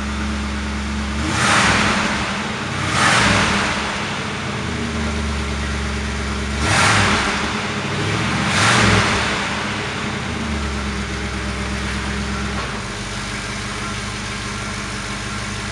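1979 Pontiac Trans Am's V8 idling at the exhaust tips, blipped four times in two pairs of short revs. Near the end the idle settles to a slightly quieter, lower note.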